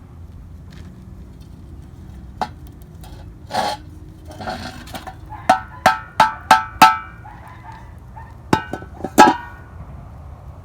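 Dishes and cutlery clinking together: a soft scrape or two, then a quick run of five sharp clinks that ring briefly about halfway through, and three more near the end.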